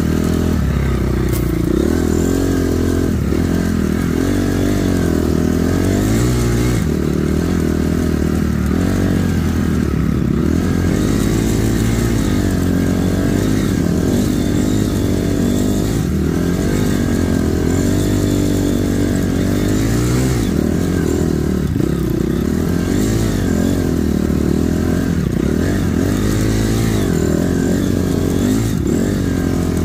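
Honda CRF250 dirt bike's single-cylinder four-stroke engine running while ridden, its revs rising and falling over and over.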